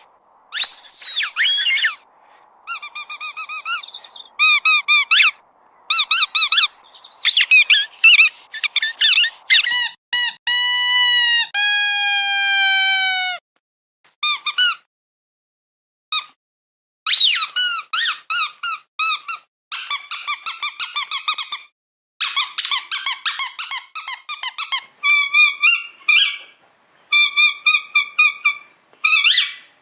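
Squeaky dog toys being squeezed: single high squeaks, quick runs of short squeaks, and one long squeak that drops slightly in pitch, with short pauses between bursts.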